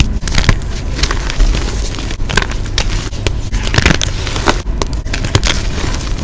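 Reformed gym chalk being squeezed and crumbled in bare hands: many crisp crunches and crackles at irregular intervals as the pressed chalk breaks into pieces and powder.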